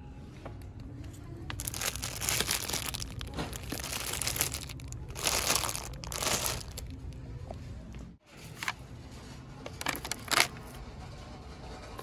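Crinkly plastic candy bags squeezed and rubbed by hand on a store shelf, in irregular bursts of crinkling with a sharp crackle near the end, over a steady low background hum.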